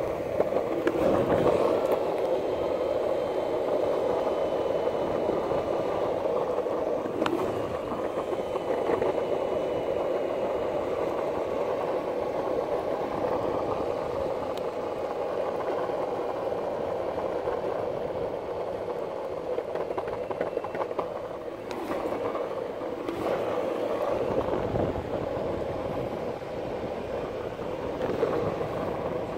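Boosted Board electric longboard's wheels rolling on asphalt, a steady rumble as the board is pushed and coasts with its drive out of action from a snapped belt. A faint high whine comes and goes in the first ten seconds or so, and there are a few light clicks.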